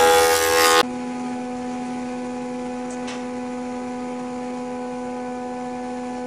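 Thickness planer planing a glued-up cedar plank: a loud cutting noise over the motor that stops abruptly under a second in, leaving the planer's steady hum. There is a faint click about three seconds in.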